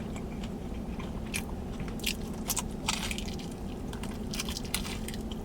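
Close-miked biting and chewing into crunchy Korean fried chicken: a run of sharp, crisp crunches at irregular moments over a steady low hum.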